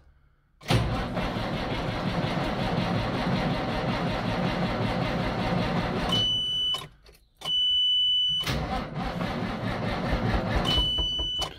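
Massey Ferguson 6480 tractor engine being cranked on the starter in two long attempts that do not fire it, with a short gap between them. A steady high warning beep sounds several times over the cranking. The engine is refusing to start, which the owner puts down to a fuel-related fault.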